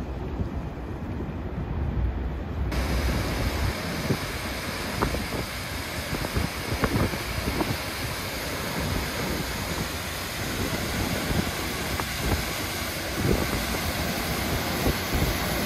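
Wind buffeting the microphone on a moving boat; about three seconds in the sound changes abruptly to the steady rushing of a large waterfall pouring into the fjord close by, with gusts of wind hitting the microphone, a little louder near the end.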